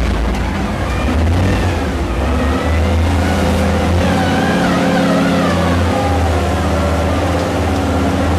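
Engine of an underground mining vehicle running steadily as it drives through a mine tunnel, with a deep hum throughout and a wavering higher whine near the middle.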